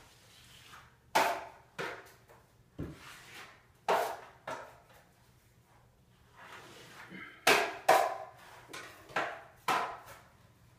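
Drywall hand tools being worked against the wall at the top of a ladder: about a dozen sharp, quickly fading strokes at irregular intervals, loudest around the middle and near the end.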